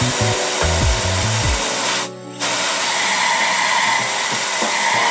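Compressed air hissing steadily from a handheld blow gun pushed into a spark plug well, blowing debris out of the well before the plug is removed. The air cuts off briefly about two seconds in, then resumes.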